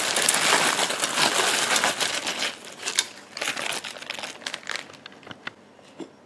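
Plastic bag of frozen sweet corn crinkling as the kernels are shaken out into a stainless steel pot. The sound is dense at first, then thins to scattered small ticks of kernels dropping, and dies away about a second before the end.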